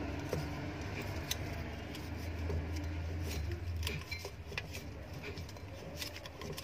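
Small clicks, rustles and metallic clinks of enamelled copper winding wire and stator laminations as a coil is pressed by hand into the tight slots of a motor stator. A low steady hum runs underneath and drops away about four seconds in.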